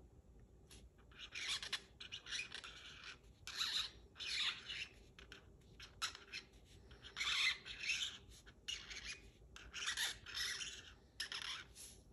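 Black felt-tip marker drawing on cardboard: a string of short, irregular scratchy strokes as the tip rubs across the surface, starting about a second in.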